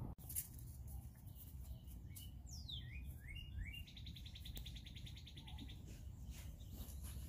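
A songbird singing faintly: a few quick falling whistled notes, then a rapid, even trill lasting under two seconds, about halfway in.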